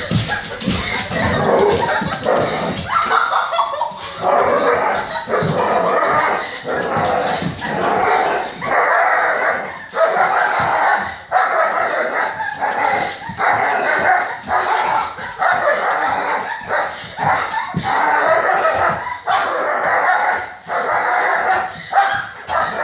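A dog barking over and over in runs of rapid barks with short gaps between them: play-barking during a game of chase.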